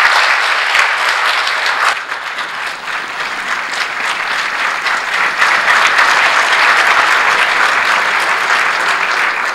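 Large audience giving a standing ovation, a dense steady mass of hand clapping that fades out at the very end.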